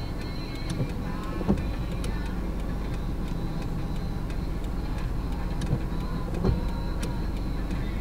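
Car engine idling with a steady low hum, heard from inside the cabin while stopped at a light. A few light clicks and two soft thumps come through over it.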